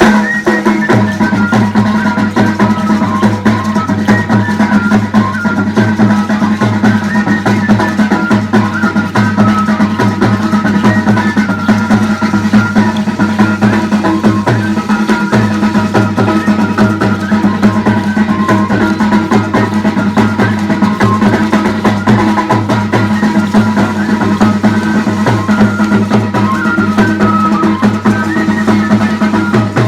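Traditional Loreto carnival dance music: a steady drum beat with snare over a held low tone, and a high melody in short notes.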